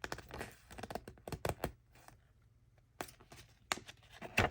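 Paper user manual being handled and its pages turned: irregular crinkles, flicks and taps, loudest near the end.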